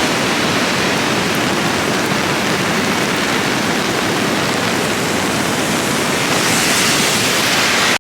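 Floodwater rushing steadily: overflow from a full lake pouring through a channel and over its banks.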